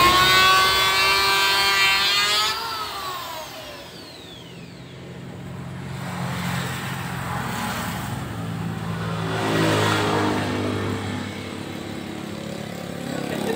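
Electric hand planer running with a high whine, switched off about two and a half seconds in, its pitch falling away over a second or so as the cutter block spins down. After that a lower, wavering motor drone carries on to the end.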